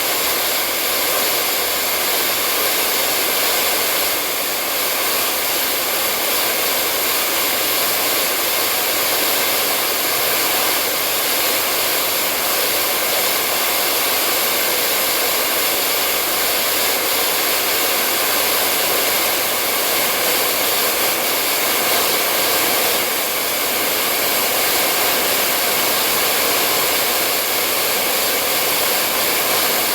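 Hair dryer running continuously, a steady unchanging whoosh of fan and airflow noise.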